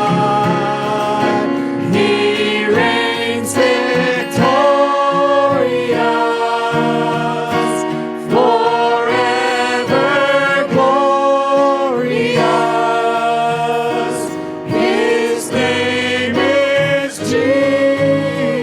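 Live contemporary worship music: a worship leader and congregation singing a praise chorus together over a band, with long held notes.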